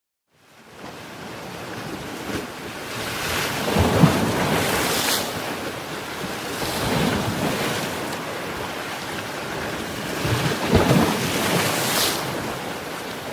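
Ocean waves surging and breaking, fading in from silence about half a second in, then rising and falling with a louder break every few seconds, with some wind noise on the microphone.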